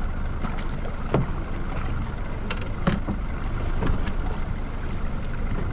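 Steady low rumble aboard a sea-fishing boat, the boat's running noise and water, with a few short sharp clicks and knocks about one, two and a half, three and four seconds in.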